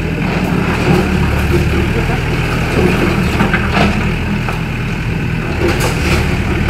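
Diesel engine of a Volvo EW60C wheeled excavator running steadily under work, with a few brief knocks about midway and near the end.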